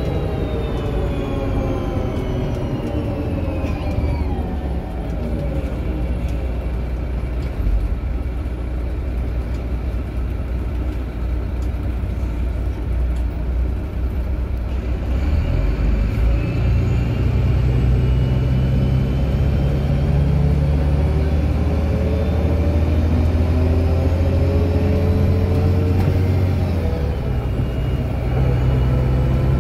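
DAF DB250 Lowlander double-decker bus heard from inside, with loud axle whine: the whine falls in pitch as the bus slows over the first few seconds, then from about halfway the diesel engine pulls hard and the whine climbs with road speed. Near the end the pitch drops back and rises again as the four-speed Voith automatic gearbox changes up.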